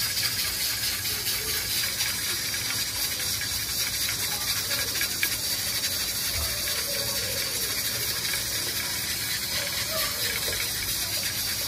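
Beef stock (yakhni) being poured in a steady stream from a pot into a large steel pan of beef and gravy, with no break in the flow.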